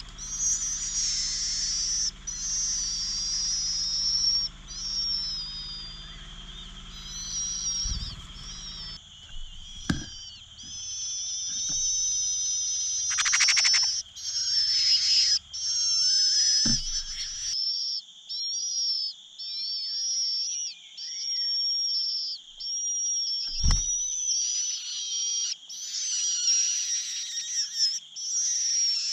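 Cuckoo chick begging for food: high-pitched calls repeated rapidly and almost without pause. A steady high tone runs beneath them, and there are a few dull thumps.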